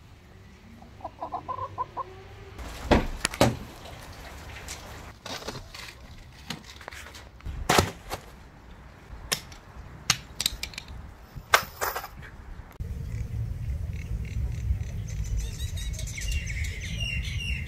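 Backyard hens clucking now and then, with scattered sharp knocks and clicks through the middle; a steady low rumble comes in about three-quarters of the way through.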